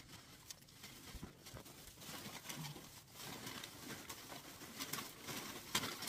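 Rustling and crinkling of a clear plastic bubble balloon and rolled paper banknotes as they are pushed by hand into the balloon's neck, with scattered soft clicks and a louder rustle near the end.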